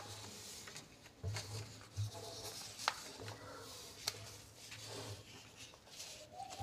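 Faint rustling and sliding of paper as a printed exam sheet and a stiff yellow sheet are moved over each other by hand. There are a few sharp ticks and an on-and-off low hum.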